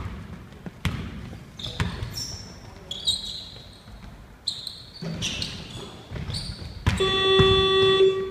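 Basketball bouncing on a court, with sneaker squeaks. About seven seconds in, a loud electronic game buzzer sounds and holds for over a second.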